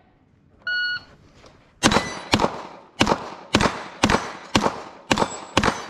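An electronic shot timer gives one short start beep. About a second later a semi-automatic pistol fires a string of about nine quick shots, roughly two a second, at a steel-target stage.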